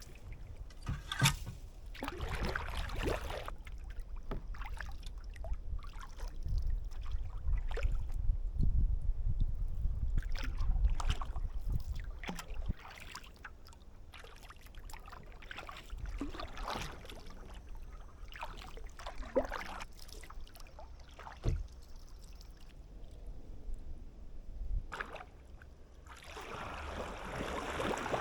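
Kayak paddle strokes, the blades dipping and splashing in creek water every second or two, with a low rumble underneath through the first half.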